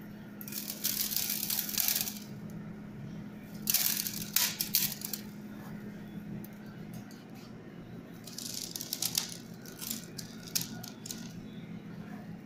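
Salt being sprinkled over chopped red peppers in a stainless steel dish: three bursts of fine rattling and pattering, each a second or two long, as the grains hit the metal and the pepper pieces, with a few scattered ticks in between.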